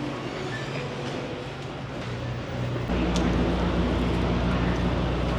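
Semi-truck diesel engine idling, a steady low hum heard from inside the cab, growing louder about three seconds in.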